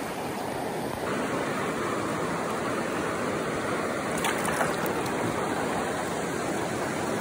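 Fast river water rushing steadily over rocky riffles and rapids. It gets a little louder about a second in, and a few faint ticks come about four seconds in.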